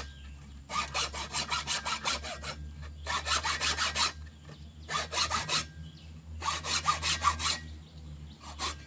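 Hand hacksaw cutting into a wooden stick with rapid back-and-forth strokes, in several short runs separated by brief pauses. The cut is being taken about halfway into the wood to make a notch.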